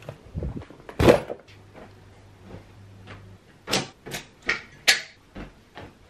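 Household things being handled and packed: one loud thud about a second in, then a run of sharp clacks and knocks about half a second apart in the second half.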